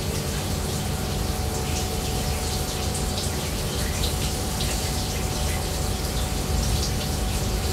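Water running steadily, an even rushing hiss with a low steady hum beneath it.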